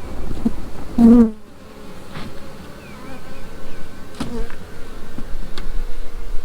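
Honeybees buzzing around an opened hive, with one bee passing close by about a second in, its hum loud and bending in pitch. A few light knocks come later.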